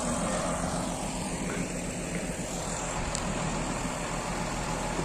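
Diesel engine of a BD50 bulldozer running steadily, with a constant low engine note.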